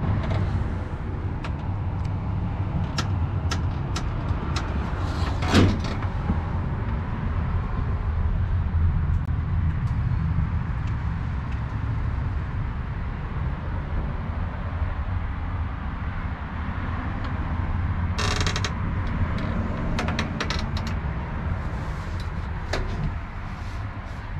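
Diesel engine of an International 7600 dump truck idling steadily with a low rumble, with scattered clicks and knocks, a louder knock about five seconds in and a short hiss near the end.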